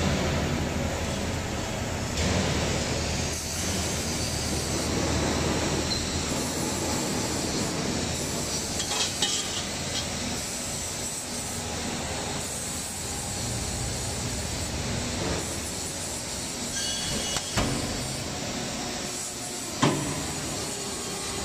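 5000-ton hydraulic press running with a steady hum and hiss, with a few sharp metal knocks, the loudest near the end as the press closes on the frying-pan bottom mold.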